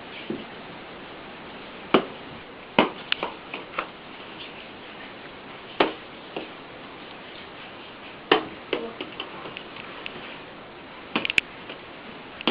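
Scattered sharp clicks and knocks of tableware being handled, over a steady background hiss, with a quick cluster of them near the end.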